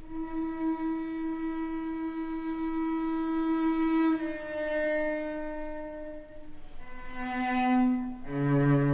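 Solo cello bowed slowly in long sustained notes: a high note held for about four seconds, then a slightly lower one, then a lower note, and near the end a louder chord with several strings sounding together.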